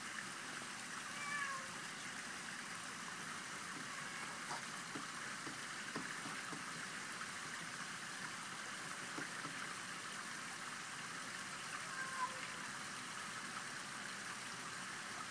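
A cat gives short meows, once about a second in and again near the end, over a steady background hiss.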